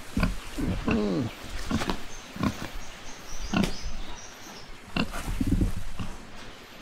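Sow giving a string of short, low grunts about once a second, with one longer grunt falling in pitch about a second in, as she lies down and has her belly rubbed. The grunts grow quieter near the end.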